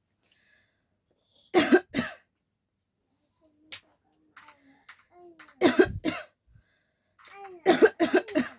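A person coughing in short bouts: a double cough about a second and a half in, a cluster of coughs around the middle, and a quicker run of four or five coughs near the end.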